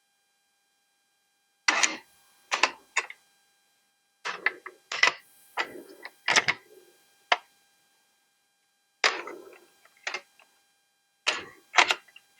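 Sharp clicks and clatters of the cassette deck's hard parts being handled during disassembly, in several short clusters with silent gaps between.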